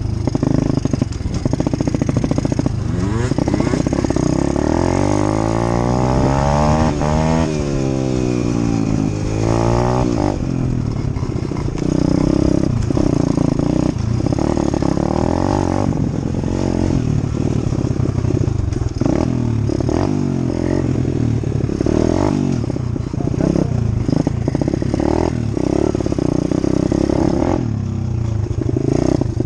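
Dirt bike engine running under riding load, its pitch rising and falling over and over as the throttle opens and closes, with short knocks and clatter mixed in.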